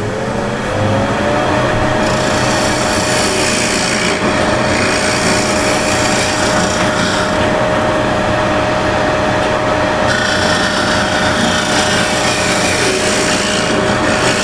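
Wood lathe motor whining up to speed over the first second or so, then running at a steady pitch. From about two seconds in, a scraper cuts the spinning wood with a continuous scraping hiss that brightens and dulls every few seconds as the passes change.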